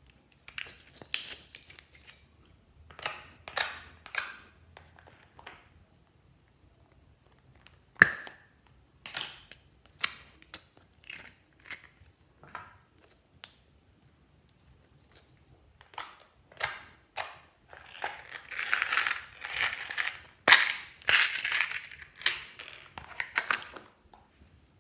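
Slime being squeezed and worked by hand, giving irregular sharp pops and crackles, with a denser run of crackling near the end.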